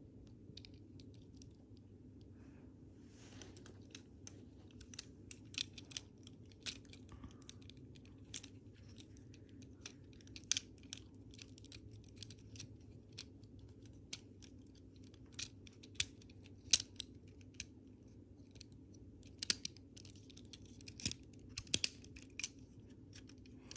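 Lego Technic plastic parts clicking and snapping as they are fitted together by hand: irregular sharp clicks that start about three seconds in, over a faint steady low hum.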